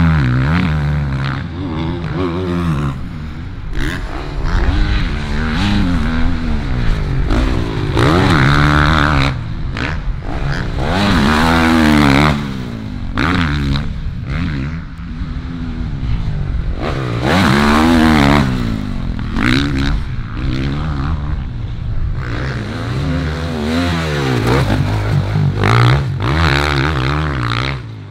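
Motocross bike engines revving hard as the bikes ride past on a dirt track. The pitch climbs and drops again and again as they accelerate, shift and back off, swelling loud every few seconds.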